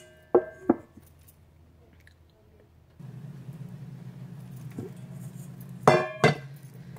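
A stainless steel mixing bowl knocking twice on a wooden board about half a second in, each knock leaving a short metallic ring. A steady low hum starts about three seconds in, and near the end the bowl clinks twice more, louder, with the same ring.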